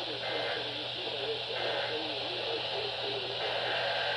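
Weak off-air radio reception: a steady static hiss and a low hum, with a faint voice just audible underneath.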